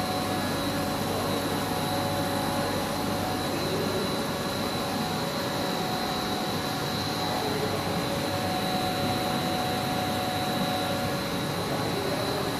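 PVC pipe extrusion production line running: a steady machinery drone with a thin, high, steady whine over it.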